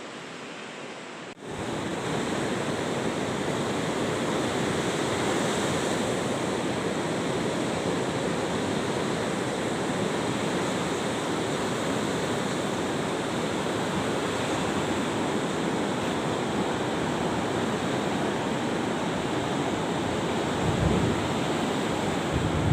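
Sea surf with strong waves, a steady rushing wash with wind buffeting the microphone, starting abruptly about a second and a half in; heavier low gusts come near the end.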